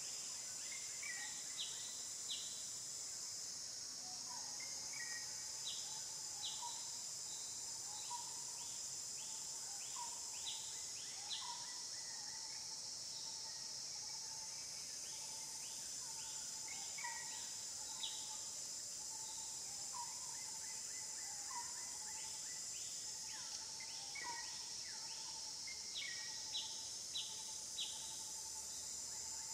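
Steady high-pitched drone of insects, with a bird's short falling chirps repeating in loose runs about once a second.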